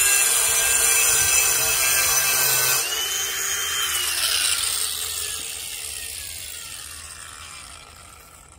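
Ryobi P423 brushless cordless angle grinder with a 4.5-inch diamond blade running steadily against concrete with a high whine. About three seconds in the trigger is released and the blade spins down, its whine falling in pitch and fading over the next five seconds.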